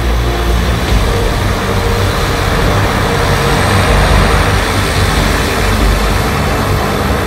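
Amphibious Cessna 208 Caravan's Pratt & Whitney PT6A turboprop running steadily at low power as the floatplane taxis on the water.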